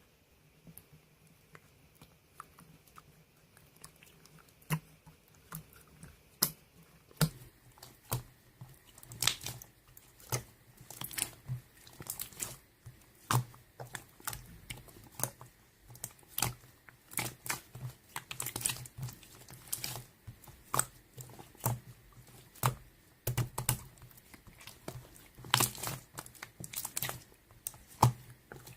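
Slime being squished and poked by hand, making irregular sticky clicks and crackling pops. It is quiet for the first few seconds, then the clicks start and grow busier.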